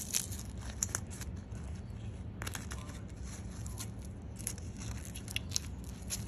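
Blue painter's tape crinkling and rustling as fingers handle it on a wiring bundle, in short scattered scratchy sounds over a steady low hum.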